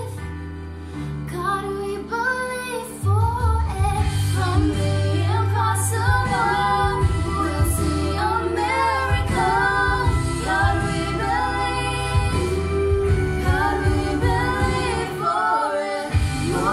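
A young mixed vocal quartet of three girls and a boy singing a gospel song in harmony over low sustained bass notes. The singing gets louder about three seconds in and stays full.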